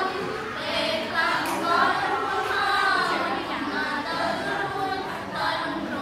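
A small group of teenage girls singing a Khmer pop song together in unison, unaccompanied.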